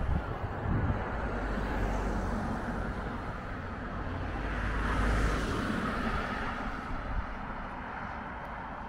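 Outdoor ambience with a passing vehicle: a broad engine-and-road noise swells to its loudest about five seconds in and then fades, over a steady low rumble.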